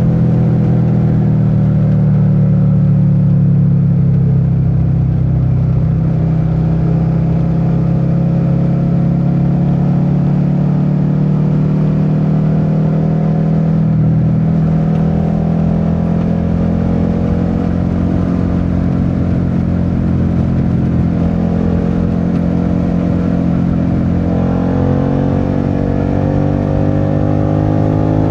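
Suzuki SV650's V-twin engine running steadily while riding along, its pitch drifting gently, then rising near the end as the bike accelerates.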